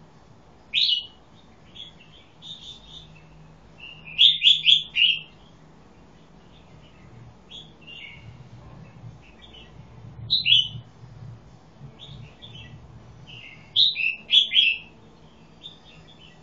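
Caged red-whiskered bulbul singing short, bright, chirping phrases, loudest about a second in, in a quick run of four notes around four seconds, again around ten seconds and in a double phrase near the end, with softer notes between.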